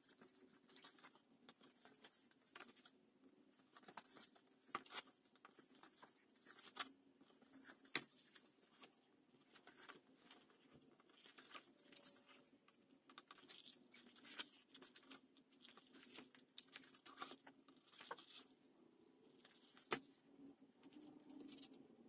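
Faint scratching and rustling of vegetable-tanned leather being handled while waxed thread is pulled through stitching holes, with scattered light clicks and two sharper taps, about eight seconds in and near the end.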